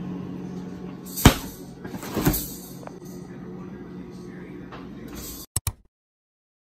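Refrigerator doors: a sharp thud about a second in as the freezer door shuts, then a softer clatter about a second later as the fridge door is pulled open, over a steady low hum. The sound cuts off suddenly near the end.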